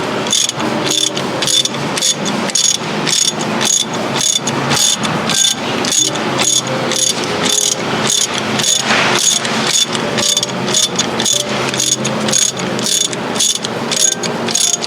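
Hand ratchet with an extension clicking in a steady run, about two to three clicks a second, as cylinder head bolts are run down by hand.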